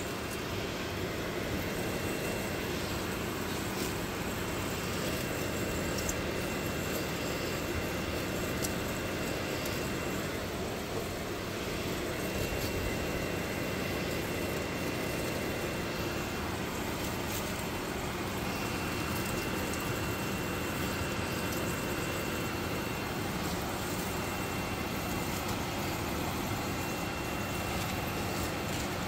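Stovetop pressure cooker under pressure, hissing steam steadily, with a faint high whistle that comes and goes every few seconds.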